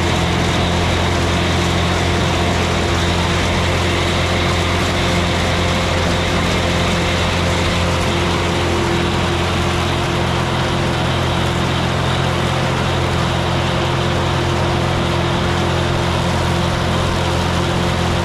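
Tractor engine running steadily under load while mowing alfalfa, an even drone with no change in speed.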